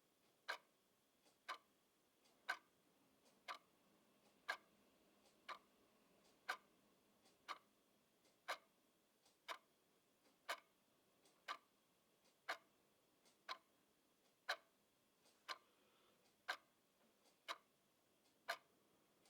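Clock ticking steadily, one sharp tick about every second, with a fainter tick between some of them.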